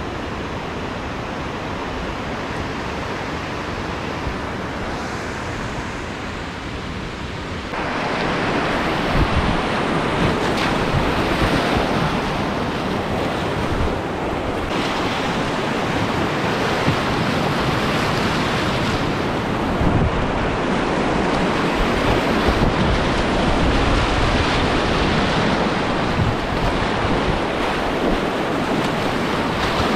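Rushing whitewater of river rapids, steady at first, then louder and nearer from about eight seconds in as a kayak runs down through the rapid. Wind buffets the microphone.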